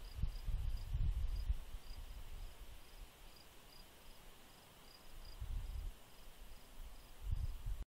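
Cricket chirping steadily in short high pulses, about three a second, over intermittent low rumbling that swells and fades. Everything cuts off abruptly just before the end.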